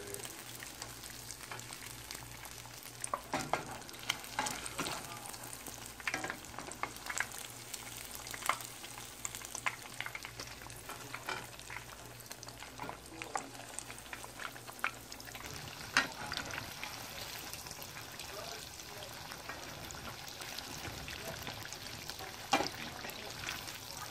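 Beer-battered fish pieces sizzling and crackling as they deep-fry in a pan of hot oil, with frequent sharp pops and a few louder clinks of metal tongs against the pan. A low hum cuts out about two-thirds of the way through.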